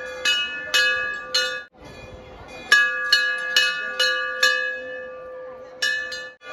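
Large hanging brass temple bell rung by hand, its clapper swung against it again and again at roughly two strikes a second, each stroke ringing on over the last. The strikes come in two runs with a short break between them, then one more stroke near the end.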